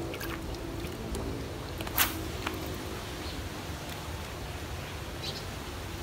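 Steady low rumble of wind buffeting the microphone, with one sharp click about two seconds in and a few fainter ticks.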